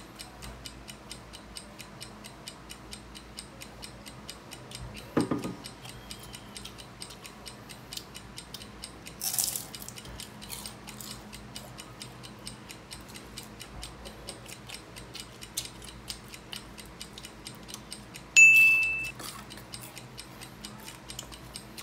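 Steady clock-like ticking of a countdown timer, a few ticks a second. A single short high beep sounds near the end, with a faint thump and a brief noise earlier on.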